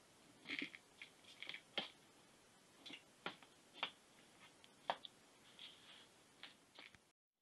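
Faint, irregular clicks and light scratches from a cat wrestling and mouthing a toy mouse against a plastic pet carrier. The sound cuts off suddenly near the end.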